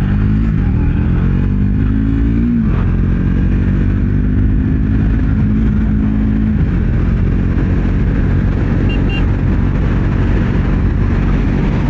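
Triumph Speed 400's single-cylinder engine pulling hard under acceleration, its pitch climbing, dropping at an upshift about two and a half seconds in, then climbing again. From about six and a half seconds a steady rushing of wind and road noise covers the engine note as the bike cruises.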